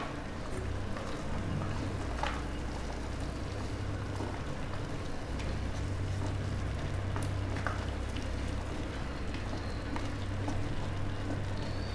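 Tomato gravy with makhana in it simmering in a kadhai: a steady bubbling, crackling hiss with a low steady hum beneath. A few soft clicks come from a wooden spatula stirring.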